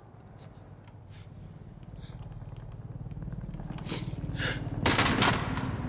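Film soundtrack of a low rumbling drone that swells steadily louder, with faint scattered crackles and hisses over it. A loud burst of noise about five seconds in is the loudest moment.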